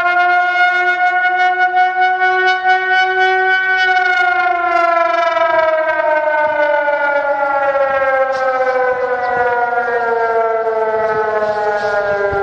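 San Francisco's outdoor warning siren sounding a test tone. It holds a steady pitch for about four seconds, then slowly falls in pitch. A second, lower steady tone beneath it fades out about five seconds in.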